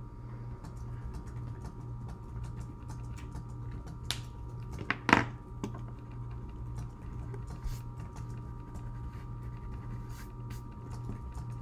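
Crayola felt-tip markers being handled on a tabletop: scattered light clicks, and a sharper knock about five seconds in, over a steady low hum.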